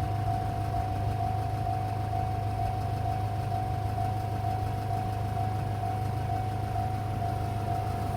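Electronic level-crossing warning bell sounding its repeated single-pitch ding, about two a second, over a steady low engine hum.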